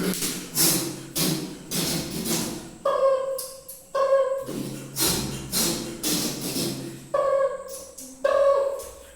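One man beatboxing a film-music-style medley with his mouth: sharp vocal percussion strokes about twice a second, with sung, instrument-like held notes coming in twice over the beat.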